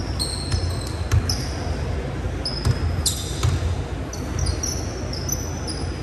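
Rubber-soled sneakers squeaking on a hardwood basketball court and a basketball bouncing. The squeaks are short, high and scattered, some sliding in pitch; the bounces are irregular dull thumps.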